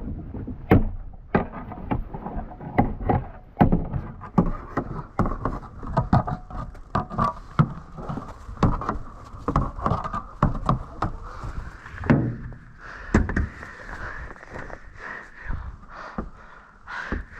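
Repeated irregular thuds, knocks and scrapes, about one or two a second, of snow being knocked and shovelled off a roof, with a faint steady whistling tone underneath.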